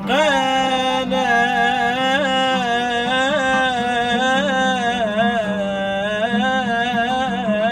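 A singer holding one long, ornamented note in an Arabic song, the pitch wavering in small turns, over a steady low drone.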